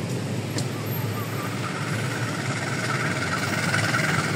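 Steady rumble of vehicle engines and traffic, with a hissing noise that builds up in the second half.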